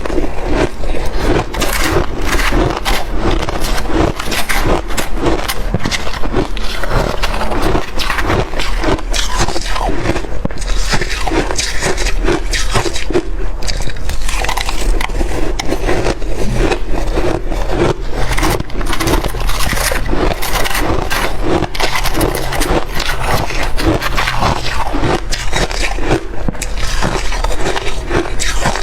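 Close-miked mouth sounds of someone chewing shaved ice and freezer frost: continuous crackly crunching and scraping in a steady run of bites.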